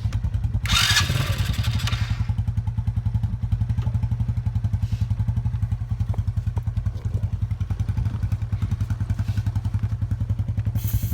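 Coolster 125 ATV's small engine turning over with a steady, fast rhythmic pulse while it is being tried without gas; it will not start. A short loud hiss comes about a second in.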